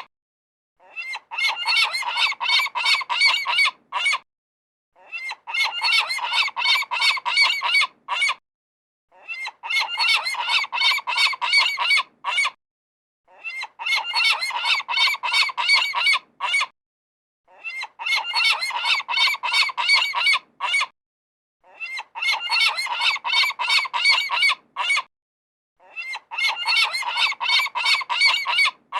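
A group of seagulls calling together in rapid, overlapping squawks. They come in bursts of about three to four seconds, each cut off by a short silence, and the pattern repeats all through.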